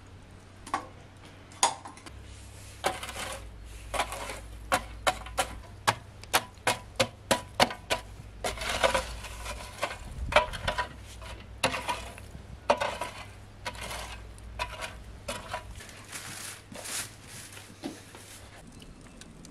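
Glowing wood embers raked across the floor of a brick wood-fired oven with a long wooden stick: charred pieces clink and knock, a quick run of about three sharp knocks a second in the middle, then rougher scraping.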